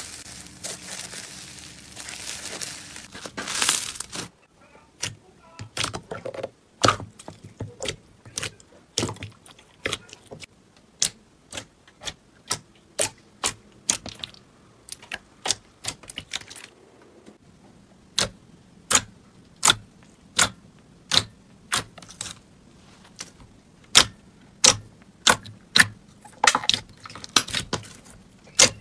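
Slime being worked by hand: a dense crackly rustle as a fluffy slime is pulled apart for the first few seconds, then a string of sharp clicks and pops, about two a second, as fingers press and squeeze air pockets in a glossy slime.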